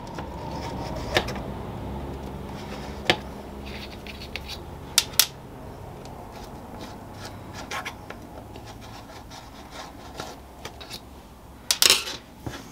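Flat-blade screwdriver turning out the small set screws that retain the pinion gears in a three-jaw mini lathe chuck: a steady scraping rub of steel on steel, with a few sharp metal clicks.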